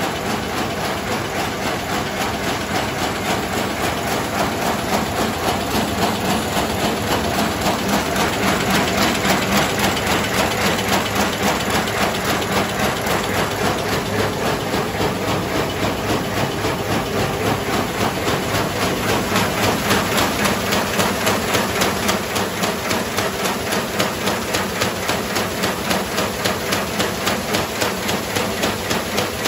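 Ounuo A220 high-speed paper bag making machine running at 240 bags a minute, forming kraft paper bags without handles. It makes a steady, rapid, even clatter that repeats with each bag cycle.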